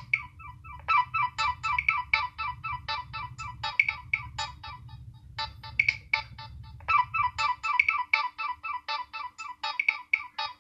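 Nokia 6100 mobile phone playing a ringtone: a fast melody of short, clipped notes in repeating phrases.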